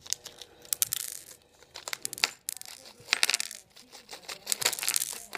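Small clear plastic parts bag crinkling in the hands, and small fingerboard parts (wheels, trucks, a little tool) clicking and clattering as they spill onto the tabletop. The sound comes in repeated short bursts of sharp clicks.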